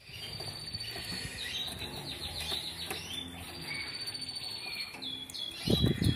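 Red agate canary singing: quick trills and long held rolling notes, with a loud fluttering thump near the end as it hops across the cage.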